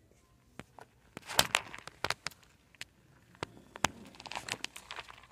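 Handling noise: a phone's microphone rubbing and knocking against a knit sweater as it is held against the body. It gives a string of crackles and sharp clicks, loudest about a second and a half in, with another busy patch near the end.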